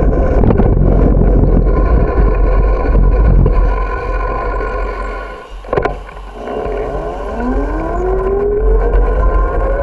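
Wind buffeting the microphone and road rumble from a moving bicycle. The rumble eases a little past the middle, there is a sharp click, and then a rising whine climbs steadily near the end.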